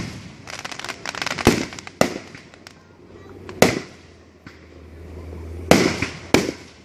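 Aerial firework shells bursting overhead: a string of sharp bangs, each with an echoing tail. About a second in there is a quick run of smaller pops, and near the end three bangs come close together.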